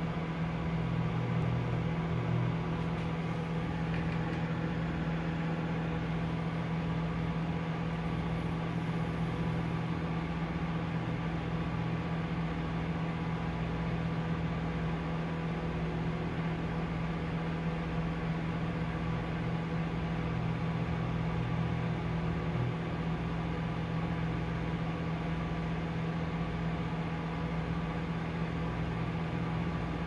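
Hamilton Beach microwave oven running: a steady electrical hum with a low throb about once a second underneath.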